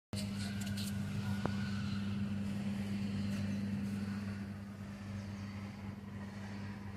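A steady low mechanical hum with a constant pitch, like a motor running, and a few faint clicks in the first second. It grows a little quieter about four and a half seconds in.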